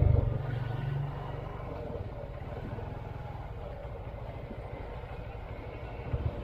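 A motorcycle engine running as it rides slowly through street traffic. It is loudest in the first second, then settles to a steadier, quieter run.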